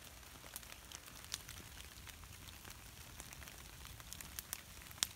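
Light rain falling on wet leaf litter in woods, with scattered sharp ticks and one louder click near the end.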